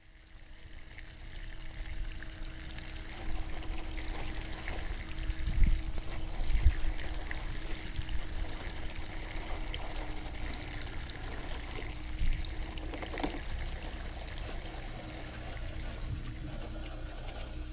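Water trickling and splashing over pebbles in a shallow stream, under a steady low hum, with a few dull thumps about five to seven seconds in.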